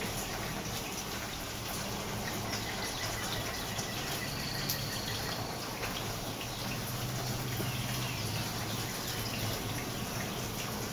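Steady hiss of falling rain with scattered faint drips, and one short faint high bird call about four and a half seconds in.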